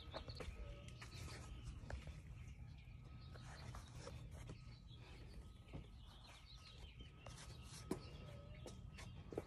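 Quiet outdoor ambience: a steady low rumble with a few scattered light clicks and faint bird chirps.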